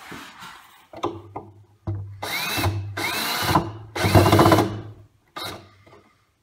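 Hand-held drill driving pocket-hole screws into wood in short trigger pulls. There are several bursts, three longer ones in the middle, each with a whine that rises as the motor spins up and then stops.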